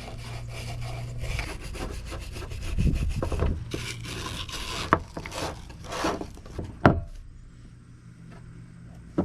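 Rapid scraping and rubbing of hand work on pool pump motor parts during a gasket and seal change, with two sharp knocks near the middle; after about seven seconds it goes quieter, leaving a low steady hum.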